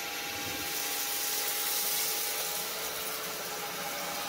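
Shark Cordless Pet Plus stick vacuum running steadily on its bare-floor setting with a constant motor whine, sucking spilled rice, Rice Krispies and cocoa powder off a hardwood floor.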